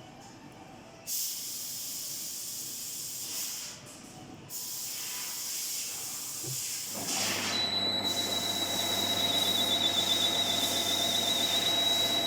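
JET GH-1440K metal lathe at work: a hissing noise sets in about a second in, breaks off briefly near four seconds, then from about seven seconds gives way to a louder, steadier machine sound with a high whine.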